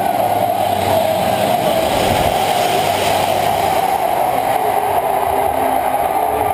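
Large stadium crowd cheering in a loud, steady roar.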